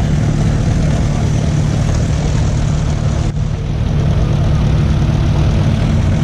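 Heavy engine of a custom rat-rod truck with an exposed engine and tall vertical exhaust stacks, idling steadily with a deep, low-pitched sound.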